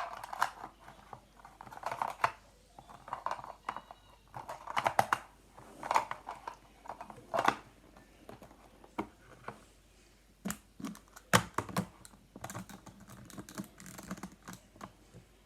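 Plastic Rubik's-type puzzle cubes and their plastic parts being handled and stacked, clicking and clattering against one another in irregular bursts of small sharp clicks and knocks.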